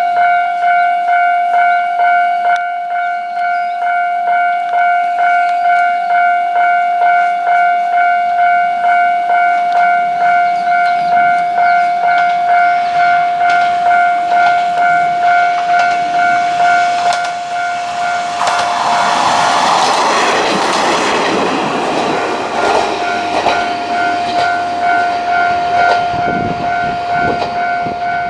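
Level-crossing warning bell ringing with a steady, evenly pulsed two-tone ding, about two strokes a second, that stops right at the end. About two-thirds of the way through, a Kanto Railway KiHa 2200 diesel railcar runs over the crossing, with engine and wheel noise swelling over the bell and then knocks from the wheels over the rail joints as it moves away.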